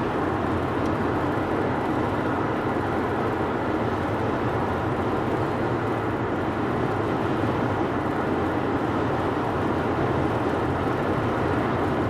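Steady road and engine noise of a van cruising at highway speed, with an even rumble and tyre hiss and no change in speed.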